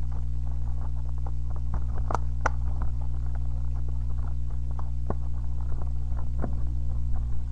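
Plastic blister packaging of a trading-card pack being handled and pried open, with scattered crackles and clicks, two sharper snaps about two seconds in, over a steady low electrical hum.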